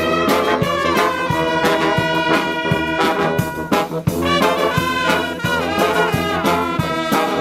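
Upbeat brass-led music, trumpet and trombone in a swing-jazz style, with a steady beat.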